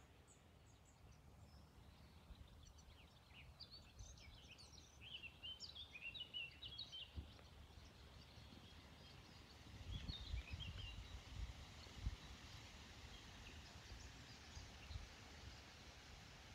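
Faint woodland ambience with small birds chirping: quick runs of high chirps a few seconds in and again about ten seconds in. A few low thuds come around the middle.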